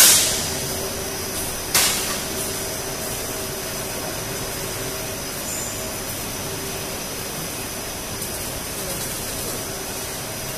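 Co-extrusion blown film machine running: a steady machine noise with a few held tones. Two sudden loud bursts stand out, one at the very start and a smaller one just under two seconds in, each fading quickly.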